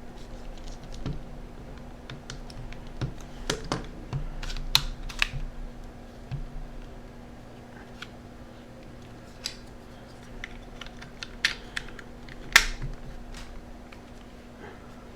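Small plastic clicks and taps from a Sharp Zaurus SL-6000D handheld's case, its screws and a small screwdriver as it is put back together. The clicks are irregular and come in two clusters, with the loudest sharp click near the end.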